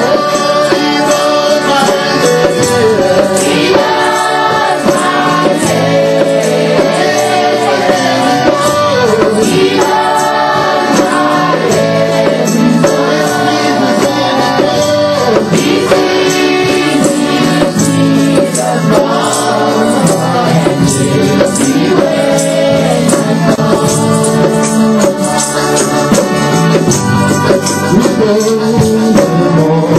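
Loud live worship music: voices singing together over instruments, with a steady shaken jingling percussion beat.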